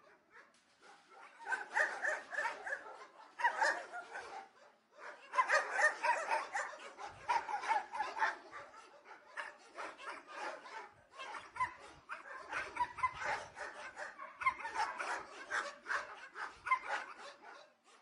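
Several dogs barking at a distance, rapid and overlapping, in long runs with a brief pause about four seconds in.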